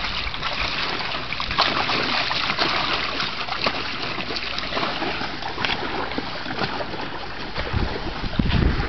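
A bulldog wading around a plastic kiddie pool, the water splashing and sloshing against its legs and the pool wall in a steady run of small splashes.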